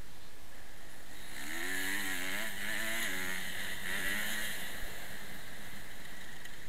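Kawasaki motocross bike engine revving, its pitch rising and falling from about one and a half to four and a half seconds in, under a steady rush of wind noise on a helmet-mounted camera.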